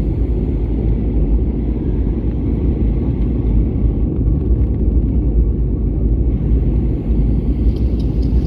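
Steady low rumble of cabin noise inside an Airbus A320neo airliner on its descent to land: engine and airflow noise heard from a window seat over the wing.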